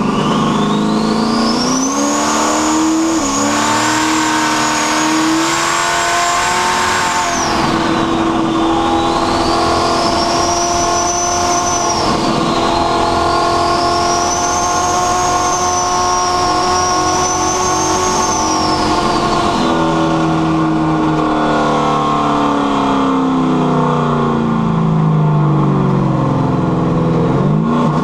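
A carbureted car engine with a rear-mounted turbocharger accelerating under boost. The turbo's high whistle climbs and holds, dips twice, then fades with the engine as it slows, and starts climbing again near the end. The title says it now runs without a misfire at high revs, though the carb still runs rich.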